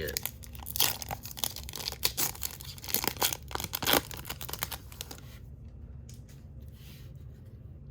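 A baseball card pack wrapper being torn open and crinkled, a rapid run of crackles through the first four seconds, then quieter rustling as the cards are handled.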